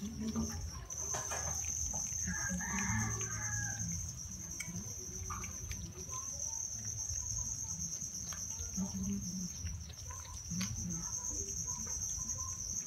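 Steady high-pitched insect chirring, with scattered soft clicks of cats chewing shredded chicken.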